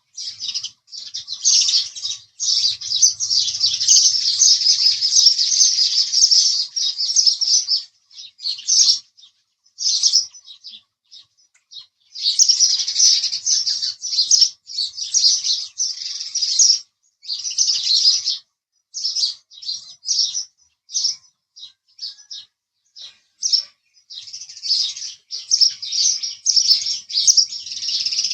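House sparrows chirping in rapid runs of short, high chirps, with long dense stretches broken by brief pauses and scattered single chirps.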